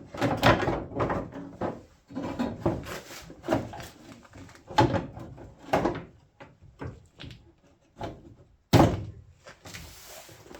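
Irregular knocks and thuds of a fibreglass front wing panel being handled and offered up against the car's body. The loudest knock comes about nine seconds in, followed by a brief scraping.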